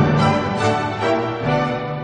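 Instrumental background music with held notes that change a few times and a slight drop in level near the end.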